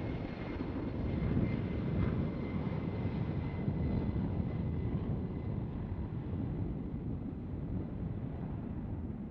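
A C-17 Globemaster III's four turbofan engines at takeoff power as the jet lifts off and climbs away: a steady deep rumble with a thin whine on top. The whine and the higher part of the sound fade through the second half as the aircraft recedes.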